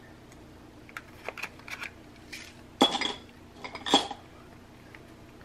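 A thin metal blade picking at the seal of a small gift box: light scratches and clicks, with two sharp metallic clinks about a second apart near the middle.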